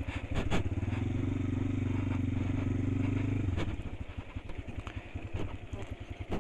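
Motorcycle engine held at steady raised revs, then dropping back to low revs about three and a half seconds in, with a few sharp knocks.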